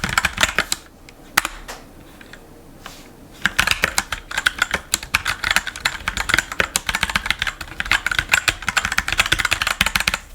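Fast typing on a SteelSeries Apex 7 TKL mechanical keyboard with brown switches: a quick run of key clicks, a pause of about two seconds with a single click, then steady rapid typing again.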